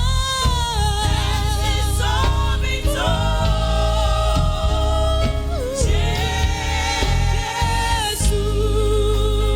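Gospel praise and worship music: live singing with a strong, steady bass line underneath, sung notes held and gliding between pitches.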